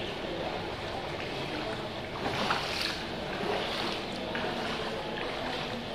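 Floodwater sloshing and splashing on a flooded ward floor over a steady rushing background, with louder swells a little over two seconds in and again around three and a half seconds.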